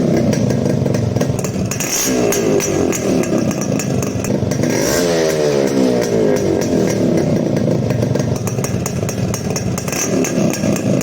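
Yamaha RX100's two-stroke single-cylinder engine running loud through a modified muffler that is hollow and unrestricted, its holes welded shut and the can cut short. The engine is blipped up and down several times, with the clearest revs about two seconds in and again around five seconds in.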